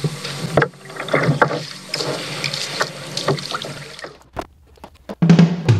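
Water sloshing and splashing around a kayak hull at the shoreline, with many small splashes. It cuts off about four seconds in, and drum-led music starts near the end.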